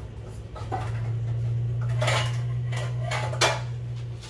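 Dishes and kitchen utensils clattering as someone rummages for a bowl: several clinks and rattles, with a sharp knock about three and a half seconds in, over a steady low hum.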